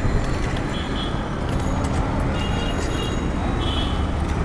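Roadside traffic noise: a steady low rumble of engines and tyres, with a few short high-pitched tones sounding over it.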